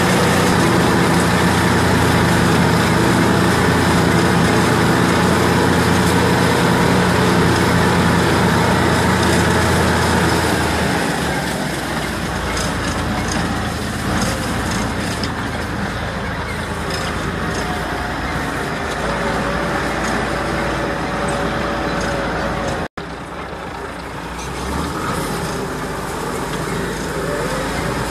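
Tractor engine running steadily under load while driving a four-row cotton-stalk shredder, heard from inside the cab. About 11 seconds in, the engine note drops lower and quieter. The sound cuts out for an instant a little after 23 seconds.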